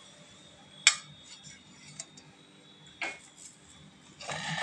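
Steel spatula clicking against the dosa pan and plate as a cooked dosa is lifted off and laid on the plate: a sharp click about a second in, another about three seconds in, and a short clatter near the end.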